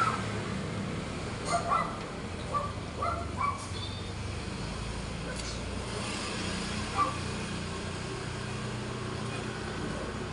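Steady low rumble of a vehicle engine, with a few short high blips in the first four seconds and one more about seven seconds in.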